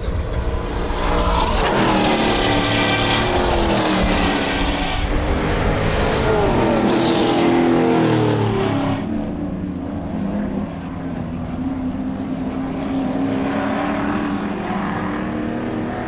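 Racing utes' engines going by on the circuit: two passes in the first half, each engine note dropping in pitch as the car goes past. After about nine seconds there is a steadier engine drone from cars farther around the track.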